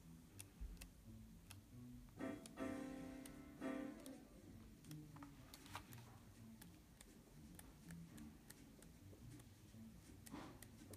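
A few faint acoustic guitar notes about two to four seconds in, then a near-silent room with scattered soft clicks and a paper swish near the end as the pages of a softcover book are turned by hand.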